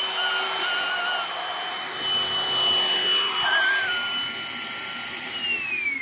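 Vacuum cleaner running on carpet, a steady whoosh of suction with a high whine; near the end the whine slides down in pitch as the motor winds down.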